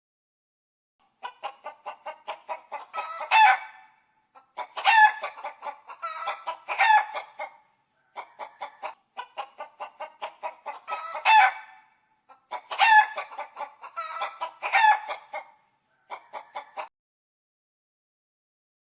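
Hen cackling: runs of quick clucks that build to a loud, drawn-out squawk, about five phrases with short silent gaps between them.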